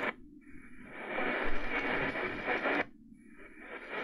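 Sangean PR-D19 portable radio being tuned up the AM medium-wave band: static and faint station audio from its speaker. The sound cuts out twice for most of a second, as the tuner mutes while stepping to the next frequency.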